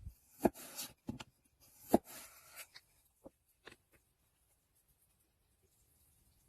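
A handful of sharp clicks and knocks, some followed by brief scraping, over the first four seconds, then near silence.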